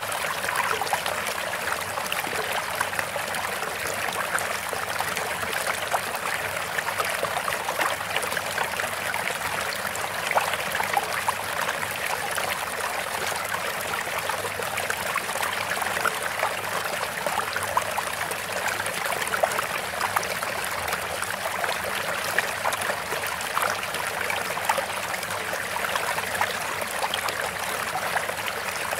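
Steady babbling of a stream, running water trickling with small irregular splashes throughout.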